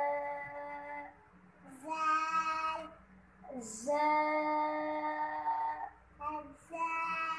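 Children chanting Arabic letter names in a drawn-out, sing-song alphabet recitation. There are about four long held notes, each opening with a short hissing consonant.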